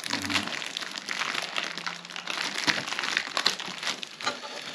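Clear plastic bag crinkling in irregular crackles as fingers pick and pull at it, trying to get it open by hand.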